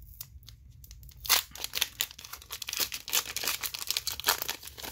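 A foil Pokémon booster-pack wrapper being torn open by hand. After a quiet first second with a few faint clicks, a sharp rip starts, then about three seconds of dense crinkling and crackling of the foil.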